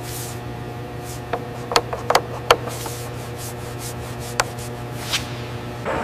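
A steady, even machinery hum in a factory hall, broken by several short, sharp clicks and knocks that bunch together between one and three seconds in, with two more later on.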